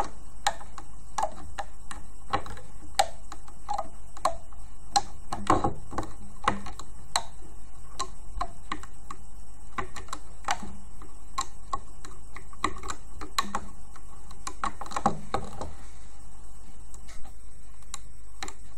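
Light, irregular clicks and taps of a looming hook working rubber bands on the plastic pins of a band loom as the bands are looped up, about one or two clicks a second, over a steady low hum.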